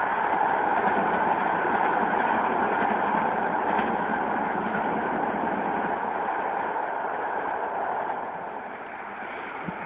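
TLK passenger train running away along the track, its wheel-and-rail noise a steady hiss that slowly fades, dropping further about eight seconds in.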